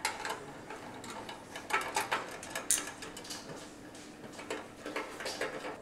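Irregular small metallic clicks and taps as a hand screwdriver turns a screw into a motorcycle fairing panel.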